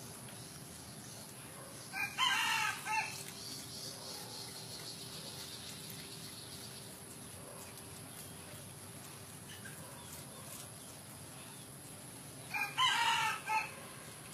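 A rooster crowing twice, about ten seconds apart, each crow about a second long. A faint steady high hiss runs underneath.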